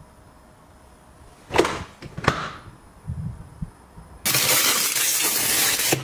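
Refrigerator doors shutting: two knocks with a glassy clink, under a second apart. About four seconds in a loud, steady hiss starts abruptly and keeps going.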